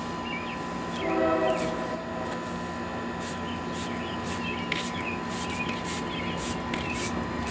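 A push broom sweeping dry mortar powder across a fresh cold-patch asphalt repair, its bristles scraping the surface in several short strokes over a steady background hum.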